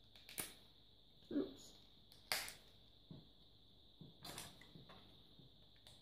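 Hard plastic frame parts of an Apidea mating box clicking and snapping as they are handled and pressed together: about six short sharp clicks, the loudest about two seconds in. A faint steady high whine runs underneath.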